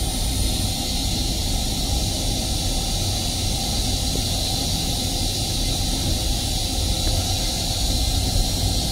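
Steady hiss over a low rumble in an M7 commuter railcar's restroom as the toilet's flush cycle runs, with water rinsing the stainless steel bowl at the start.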